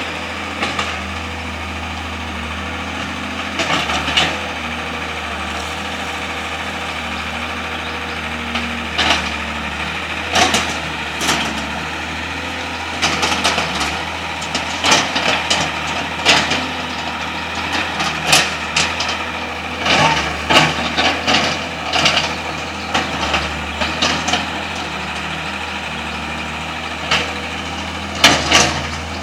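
Excavator engine running steadily, with frequent short knocks and clatters, most of them in the middle and again near the end.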